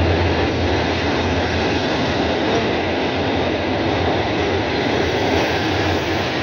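PKP Intercity passenger coaches rolling past along the platform: a steady, continuous rumble of wheels on rails with a strong low hum.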